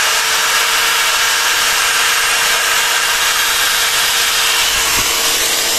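Two corded electric drills, an iBell 650 W hammer drill and an iBell 400 W drill, running together at full speed as their 6 mm bits bore into a piece of wood. It is a steady, even motor whine over the rough noise of the bits cutting.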